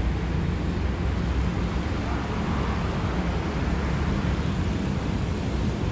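Steady low rumble of motor traffic and engines, even throughout with no distinct events.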